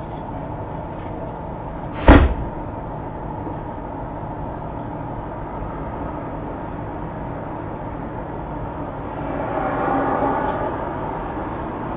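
A single sharp, loud bang about two seconds in over a steady background hum, then a gradual swell of noise near the end that fades again.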